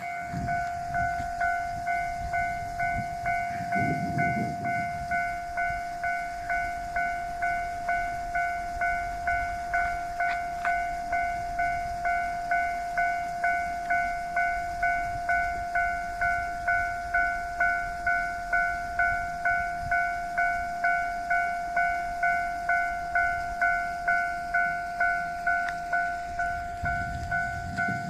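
Electronic warning bell of a Japanese railway level crossing ringing steadily, a repeating ding just under twice a second.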